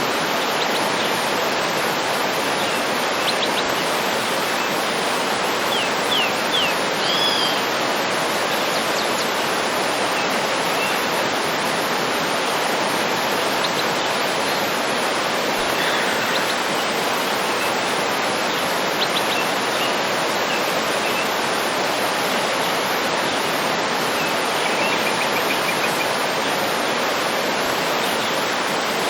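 Waterfall pouring in a steady rush, with a few faint bird chirps and whistles over it.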